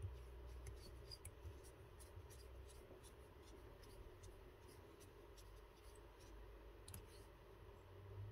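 Near silence with faint, irregular small clicks and ticks from fly-tying tools and materials handled at the vise.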